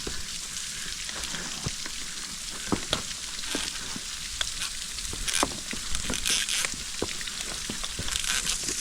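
Steady hiss of a waterfall, with many short, sharp clicks and taps scattered over it.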